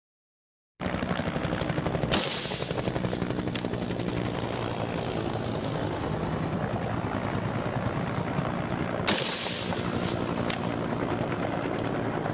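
Gunfire in a firefight: a dense, rapid crackle over a low drone, with two loud, sharp shots about two seconds in and again about nine seconds in.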